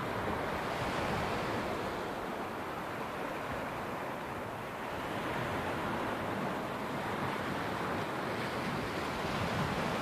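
Small sea waves washing onto a beach, a steady rush that slowly swells and eases.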